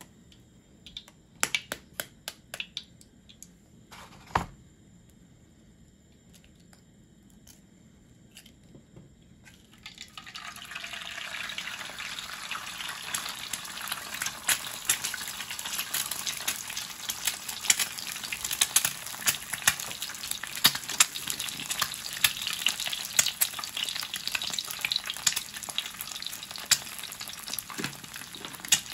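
A few light clicks and knocks, then about ten seconds in an egg goes into hot oil in a frying pan and fries with a steady sizzle and crackle of small pops.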